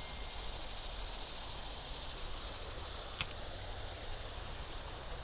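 Steady, low outdoor background hiss with one sharp click a little past halfway through.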